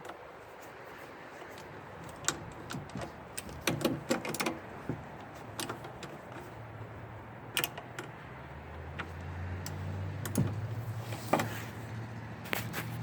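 Scattered sharp clicks, taps and metallic clinks of hand tools and small parts being handled while a generator is assembled. A low steady hum comes in about two-thirds of the way through.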